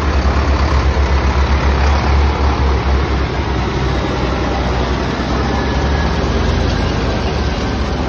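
Diesel tractor engines running as tractors drive past one after another, a red Massey Ferguson among them. The sound is a steady, loud, deep pulsing rumble.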